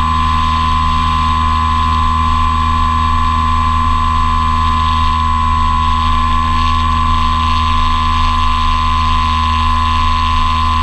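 Electric brushless motor and propeller of an Apprentice S 15e RC airplane running at a steady throttle in flight, heard from the onboard camera: a loud, steady whine with a low hum beneath it.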